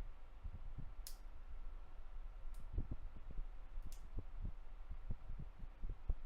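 Small parts of a smartphone being handled during repair: many soft low knocks, with three sharp clicks about a second, two and a half seconds and four seconds in, over a faint steady hum.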